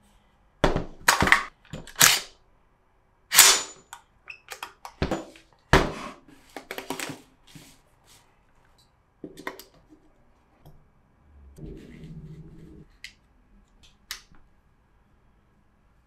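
A rifle handled on a tabletop: a run of sharp knocks and clunks as it is set down and shifted, loudest in the first few seconds. Later comes a short rubbing, sliding sound as the elastic webbing sleeve is worked over the rail handguard, with a few light clicks.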